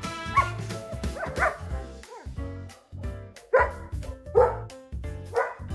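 A dog barking about five times over background music. The loudest barks come in the middle.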